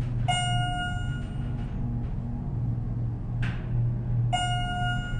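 Schindler MT/300A hydraulic elevator car travelling up, with a steady low hum from the hydraulic drive. An electronic floor chime rings twice, about four seconds apart: shortly after the start and again near the end.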